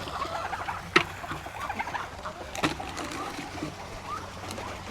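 Chickens clucking here and there, with a sharp knock about a second in and a fainter one in the middle.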